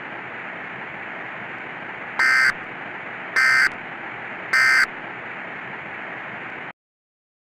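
Three short, identical bursts of Emergency Alert System SAME data tones, a warbling two-tone screech about a second apart, which mark the end of the alert message. They sit over a steady static hiss that cuts off abruptly near the end.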